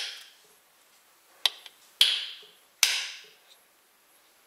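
An eggshell tapping against the plastic measuring cup of an electric egg cooker as the top of the egg is pressed onto the cup's piercing pin: about four sharp knocks in the first three seconds.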